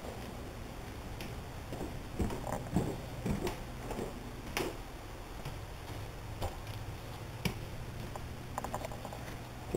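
Scattered soft knocks and clicks from footsteps on a wooden floor and the handheld camera being jostled while walking, over a low steady hum.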